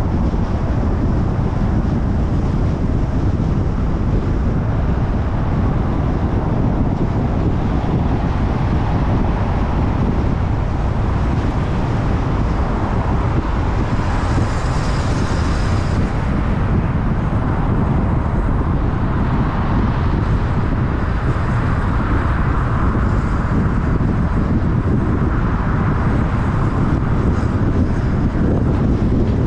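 Car driving at road speed: steady low road and wind noise, with a brief brighter hiss about halfway through.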